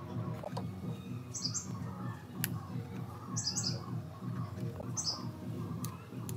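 Three short, high bird chirps about two seconds apart, over a steady low background hum. A single sharp click comes about two and a half seconds in.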